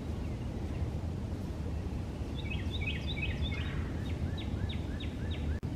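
A songbird singing a quick string of repeated, downward-sliding notes, starting a little before halfway and lasting about three seconds, over a steady low outdoor rumble.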